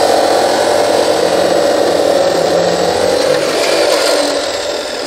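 DeWalt abrasive chop saw running, its cut-off wheel cutting through a 4-inch CPVC pipe; the noise eases a little near the end as the cut finishes.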